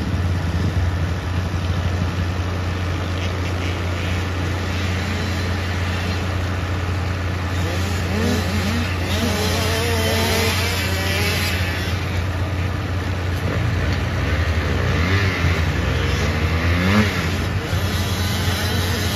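Small four-stroke 110cc pit bike engines revving up and down as riders race around a dirt motocross track, the pitch rising and falling through shifts and jumps and getting louder near the end, over a steady low hum.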